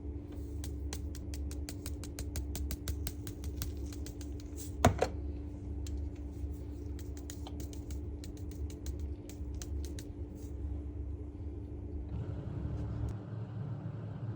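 Fat spitting and popping in a hot pan, quick sharp crackles that thin out after about seven seconds, over a steady low hum. One loud knock comes about five seconds in.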